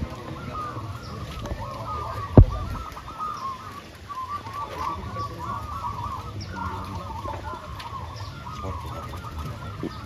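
Many zebra doves cooing and warbling together in a continuous chorus, with one sharp knock about two and a half seconds in.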